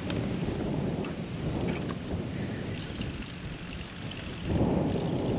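Wind buffeting the camera microphone: an uneven low rumble that surges louder about four and a half seconds in.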